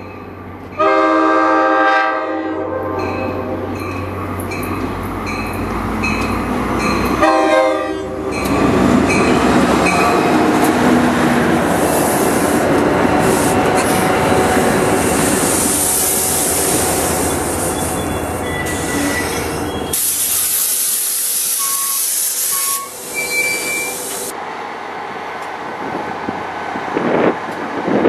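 Horn of an NJ Transit GP40PH-2B diesel locomotive sounding a blast about a second in and a shorter one about seven seconds in, then the train's coaches rolling past close by with wheel and rail noise and a high wheel squeal.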